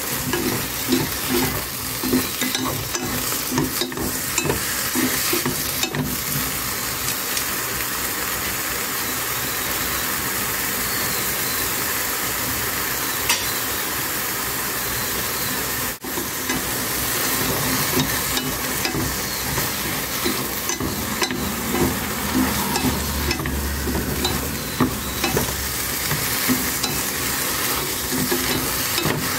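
Eggplant slices sizzling as they are stir-fried in a pan, wooden chopsticks turning them over and clicking against the pan. The clicking is busiest near the start and the end.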